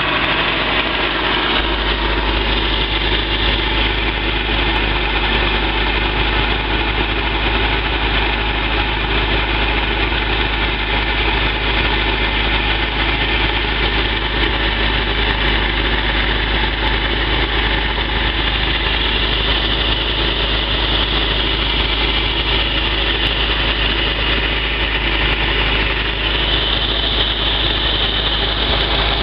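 Boat's inboard marine engine idling steadily, pumping cooling water through a cracked block that has failed after a poor repair and is leaking water down its side.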